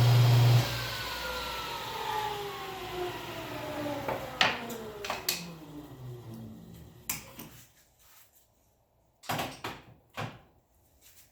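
An electric woodworking power tool switched off about half a second in, its motor whine falling steadily in pitch as it spins down over about six seconds. A few sharp clicks and knocks sound along the way, with two louder knocks near the end.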